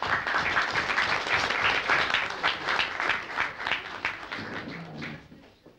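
Audience applauding, starting all at once and fading away near the end.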